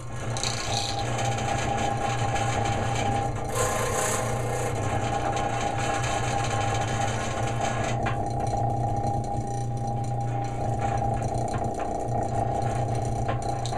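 Old disc sander's electric motor, an oil-bushing motor turning a heavy steel flywheel, running steadily with a low hum and a rattle. A brief hiss about four seconds in.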